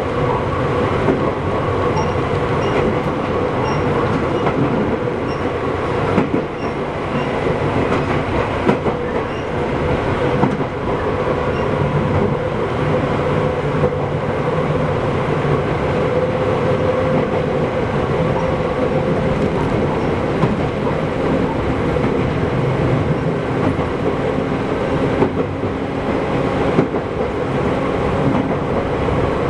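Izukyu 8000 series electric train running on the line: steady running noise with a held hum and occasional rail-joint clacks.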